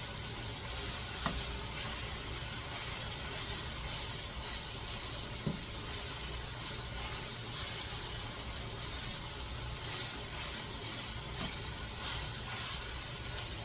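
Chicken pieces browning in a hot frying pan, sizzling with a steady hiss, with a couple of light clicks.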